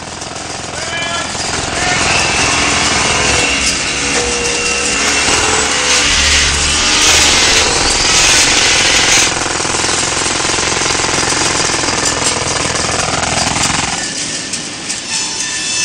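Jackhammer hammering with a steady, rapid rattle, loudest about halfway through. Near the end its deep part drops away.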